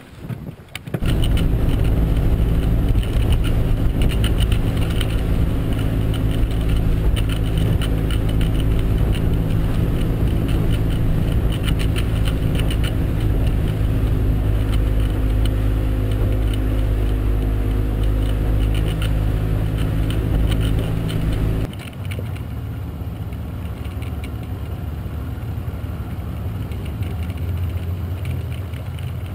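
Outboard motor on a small aluminium boat running under way at speed, a steady engine note, sudden about a second in. Near the end it drops abruptly to a quieter, lower steady run at low throttle.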